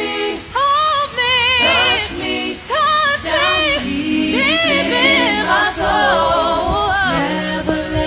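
Voices singing a slow love song a cappella, in long wavering runs with vibrato; a lower voice holds notes under the melody in harmony through the middle.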